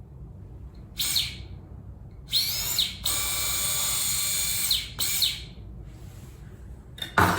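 Small electric drill whirring in short starts and one steady run of about two seconds, spinning up and down in pitch, while it drills a hole for a suture anchor in the bone. A short knock near the end.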